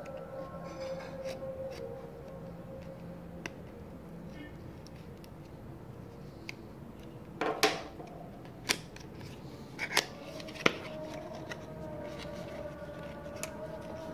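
A hobby knife slitting the seal of a small cardboard box and the box being handled: a few sharp clicks and scrapes in the second half, the loudest cluster a little past halfway, over a steady hum.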